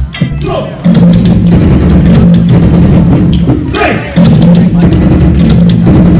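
Live drum-ensemble performance: fast, dense hand-drum and percussion strikes over a steady low drone that breaks off briefly near the middle.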